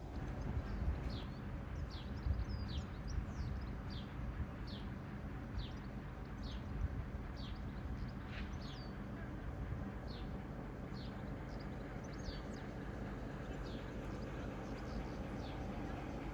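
A small bird calling over and over, a short high falling chirp about once a second, over a low steady rumble.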